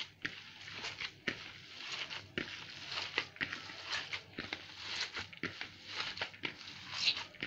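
A bare hand kneading and squeezing a wet minced-meat filling, with grated onion and parsley, in a plastic bowl: squelching and slapping strokes in an uneven rhythm, a few each second.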